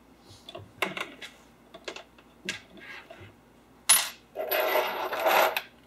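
Small metal tools and hardware clinking on a workbench: a few light clicks, then a sharp metallic clink about four seconds in followed by a ringing, rattling jingle of a second or so, like loose metal bits settling.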